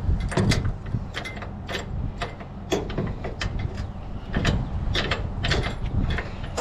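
Scrap metal being handled: irregular metallic clanks, knocks and rattles, about two or three a second, over a steady low hum.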